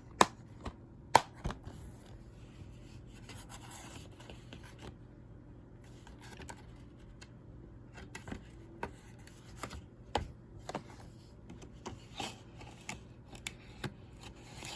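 Plastic DVD case and discs being handled: two sharp clicks within the first second and a half, then scattered lighter clicks and rubbing of plastic.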